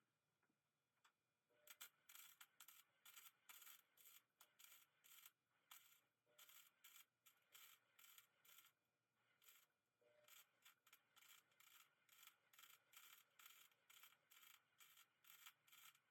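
Faint rhythmic rasping strokes of a hand tool, about three a second, with a short pause about halfway through.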